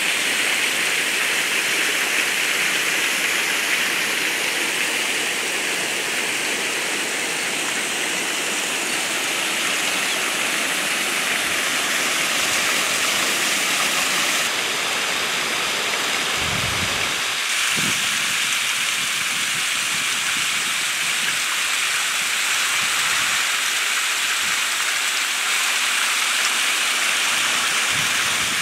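Waterfall cascading over rock ledges into a pool: a steady rush of falling water. A few brief low thumps come a little past halfway.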